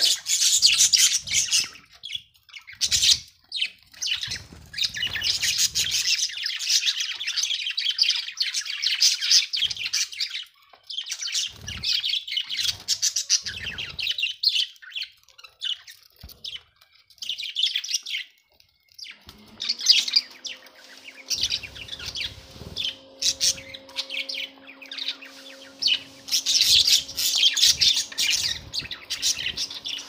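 Budgerigars chattering and warbling in quick, scratchy spells with short pauses between. About two-thirds of the way through, a low steady hum comes in underneath and keeps on.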